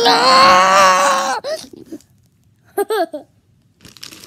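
A young girl's loud, long, high-pitched squeal held on one pitch for about a second and a half, then after a pause two short yelps about three seconds in.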